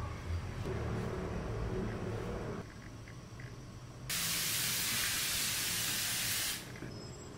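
La Roche-Posay thermal spring water aerosol can spraying a face mist: one continuous hiss about two and a half seconds long, starting about four seconds in.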